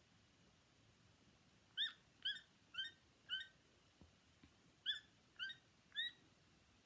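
Recorded toucan calls: short, rising-then-falling notes about two a second, a run of four and then, after a gap of about a second and a half, a run of three.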